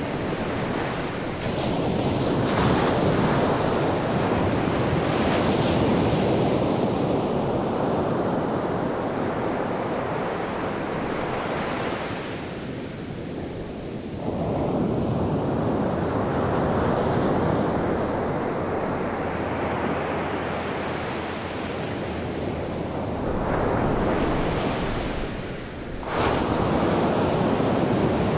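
Ocean surf: waves breaking and washing up the beach in a continuous rush that swells and ebbs every few seconds. Near the end the sound cuts off abruptly for a moment and resumes.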